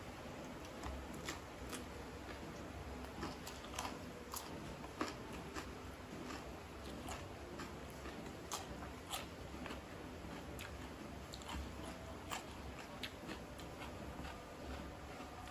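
Chewing and crunching of raw cucumber, with many irregular sharp crackles and wet mouth clicks.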